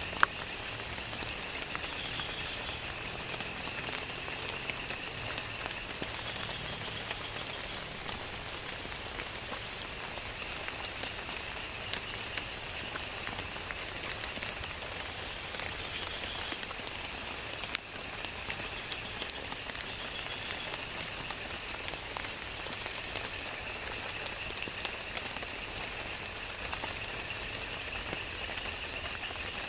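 Steady rain falling, with many single drops ticking on a surface and a steady high-pitched whine underneath; one sharp click just after the start.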